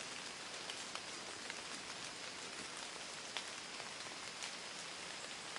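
Light rain falling on leaves: a steady soft hiss with scattered faint drop ticks.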